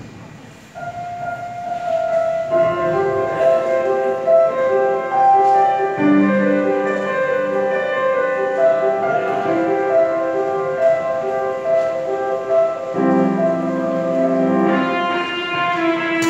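Instrumental music with a slow melody of held notes, starting about a second in; fuller and lower parts join a few seconds later and it carries on steadily.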